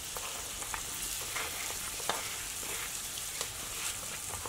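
Hot dark roux of oil and flour sizzling steadily in a cast-iron skillet as diced onions and green peppers are scraped into it, with a few faint clicks.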